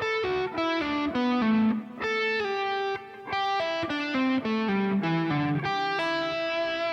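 Electric guitar playing a single-note pentatonic lick slowly, in triplet groupings: several runs step down in pitch, sliding from B minor pentatonic at the 7th fret to A minor pentatonic at the 5th fret, and end on a held note.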